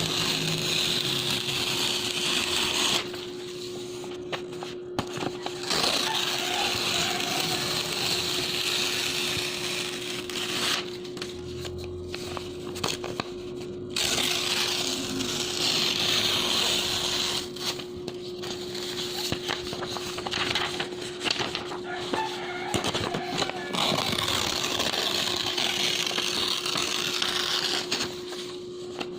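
Sheets of clean bond paper being torn by hand, a crisp ripping that comes in stretches of a few seconds with short pauses between, about five rips in all.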